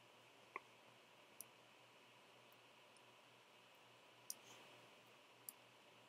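Near-silent room tone with four faint, sharp, irregularly spaced clicks, computer mouse clicks while editing.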